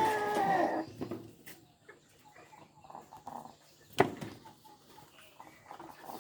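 Rhode Island Red and Kadaknath chickens: a loud drawn-out call in the first second, then soft scattered clucking. A single sharp knock comes about four seconds in.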